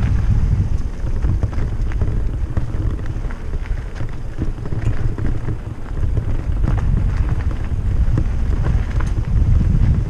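Wind buffeting the camera microphone of a moving mountain bike, a steady low rumble, with scattered rattles and knocks from the bike over the rough dirt trail.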